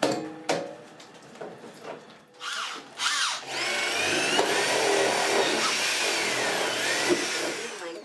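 Corded electric drill boring into the top edge of a washing machine cabinet. There are two short bursts about halfway in, then a run of about four seconds whose whine rises and falls in pitch as the bit loads, stopping near the end. Knocks and clicks from handling the panel come before it.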